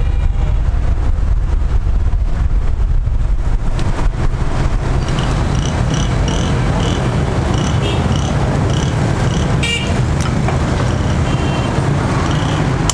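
Busy street traffic: a steady low rumble of passing vehicles. From about five seconds in, a run of short high pips repeats roughly twice a second over it.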